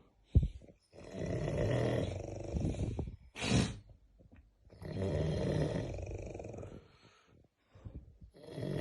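A person snoring: two long in-breaths of about two seconds each, with a short sharp breath out between them, and a third starting near the end. Each snore has a fluttering rattle likened to a helicopter.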